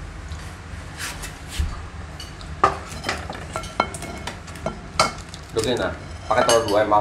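Metal spoon clinking and scraping against a ceramic bowl while someone eats noodles: a string of sharp, ringing clinks. Near the end a person's voice is heard briefly, without clear words.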